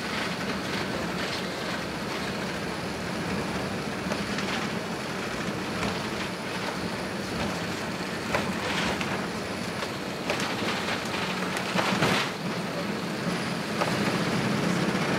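Steady cabin noise inside an Airbus A380 moving on the ground: a low rumble of engines and rolling with a few short clatters, growing a little louder near the end.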